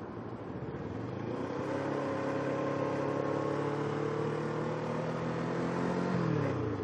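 Kawasaki Ninja 650R's parallel-twin engine pulling under throttle, its pitch climbing slowly and then falling near the end as the throttle closes, over a steady rush of wind on the microphone.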